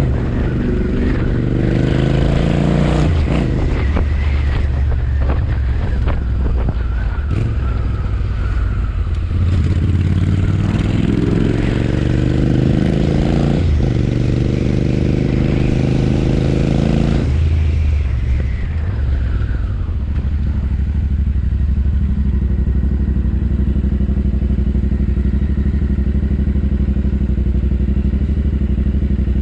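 Royal Enfield Interceptor 650's parallel-twin engine through an aftermarket JVK exhaust, pulling up through the gears with rising pitch and two shifts. About two-thirds of the way in the throttle closes, and it settles into a steady, even low note.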